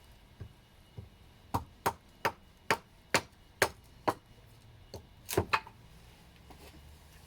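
A quick run of about ten sharp knocks, roughly two a second, with two fainter ones just before.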